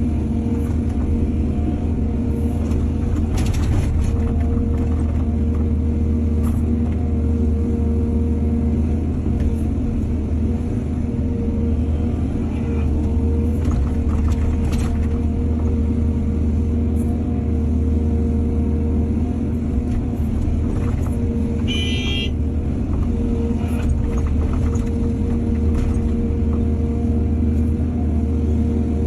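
Excavator's diesel engine running steadily under load, with a few short knocks and a brief high squeal about three quarters of the way through.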